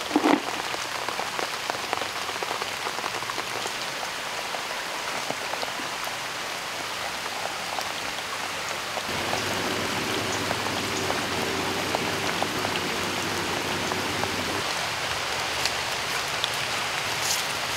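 Rain falling steadily. A faint low hum joins for about five seconds in the middle.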